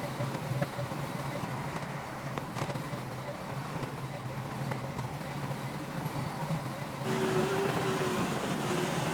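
Diesel engine of heavy earthmoving machinery running steadily with a low drone; about seven seconds in it gets louder and a wavering whine joins it.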